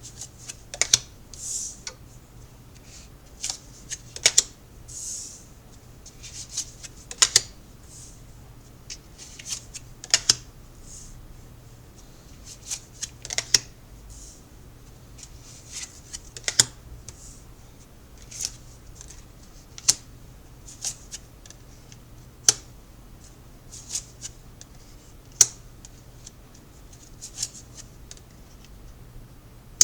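Tarot cards being handled and shuffled: irregular sharp clicks and short swishes of card against card, about one a second, over a faint low hum.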